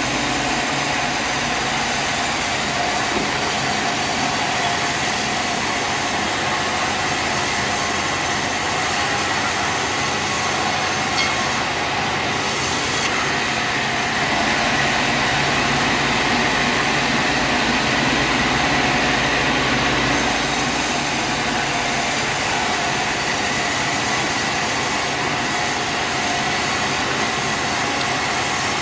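Sawmill machinery running steadily, a continuous dense mechanical noise with a faint high whine over it; the low end grows heavier from about halfway and eases again about two-thirds of the way in.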